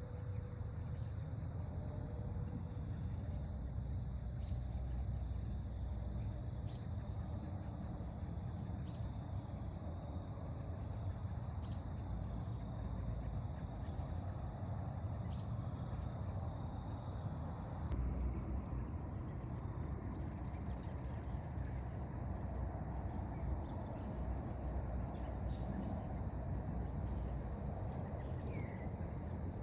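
Steady chorus of crickets trilling in a continuous high band, over a low rumble. The mix of insect voices changes abruptly about 18 seconds in.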